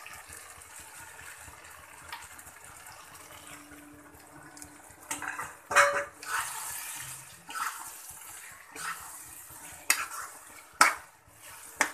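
Chicken masala frying in a metal kadhai, with a metal slotted spoon scraping and clanking against the pan. About six seconds in, water poured into the hot masala sets off a louder burst of hissing, and a few sharp clanks of the spoon follow near the end.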